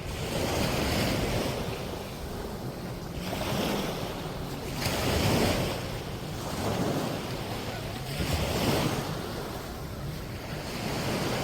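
Sea waves breaking and washing up the shore, swelling in about every three to four seconds, with wind buffeting the microphone.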